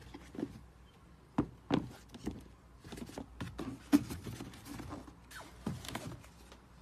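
Handling noise from sneakers being moved about on a cardboard shoebox: a series of light knocks and rustles, the sharpest about four seconds in.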